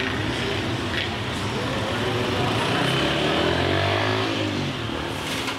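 Night street traffic: a steady hum of traffic, with a car passing whose engine note grows louder and bends in pitch midway through, then fades.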